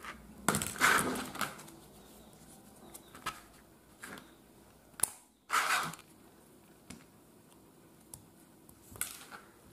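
Scattered clicks, taps and rustles of hand tools and wire being handled on a work mat: a tester screwdriver and a wire stripper put down and picked up. The loudest rustling bursts come about half a second in and again a little past the middle.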